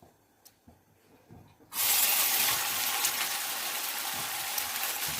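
Egg and vegetables dropped into a pan of hot oil, setting off a sudden loud sizzle about two seconds in that keeps going steadily. Before that, a few light clicks.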